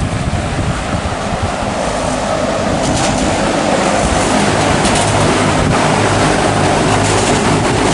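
2019 Carrier Gemini 7.5-ton heat pump running in heat mode: a steady hum under the rush of its outdoor fan, getting a little louder over the first few seconds.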